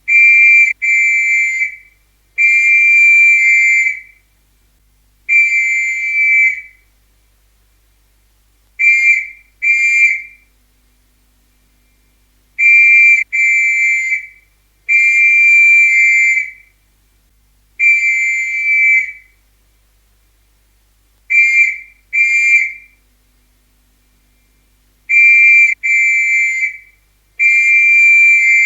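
Police whistle blown in a series of high-pitched blasts that start and stop sharply. Short blasts often come in quick pairs, with some longer blasts held for a second or more and brief pauses between groups.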